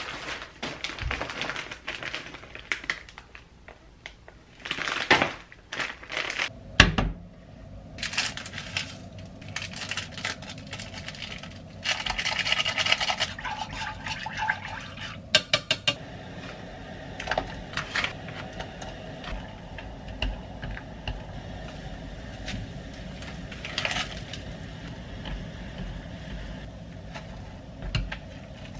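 Kitchen sounds of cooking instant ramen: a plastic noodle packet rustling, and scattered sharp clicks and knocks of utensils and the pot. In the second half, a steadier low noise as broth heats in a pot and chopsticks stir it.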